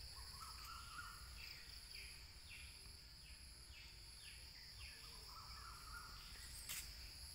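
Faint evening insect chorus, a steady high-pitched drone of crickets, with a bird calling over it in short repeated falling notes, about two a second.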